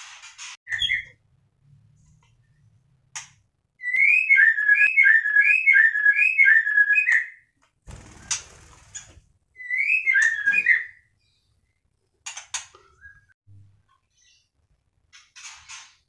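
White-rumped shama song: a quick run of about five identical rising-and-falling whistled notes, then a shorter run of two or three, with short harsh scratchy calls in between.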